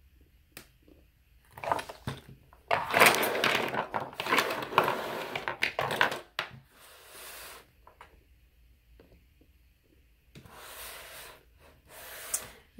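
Makeup brushes clattering against one another and the box as they are gathered into a storage box: a dense rattle of handles lasting about three and a half seconds, then a shorter clatter near the end with a few light clicks.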